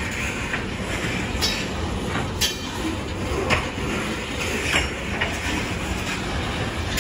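Covered hopper cars of a freight train rolling past: a steady rumble of steel wheels on rail, broken by a few irregular sharp clanks and clicks.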